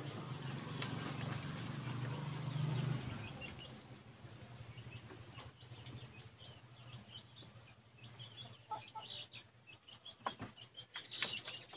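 Small birds chirping over and over in the background, with a few sharp taps as the cats' paws scuffle on the bamboo slats. A low steady drone is the loudest sound for the first three seconds, then fades.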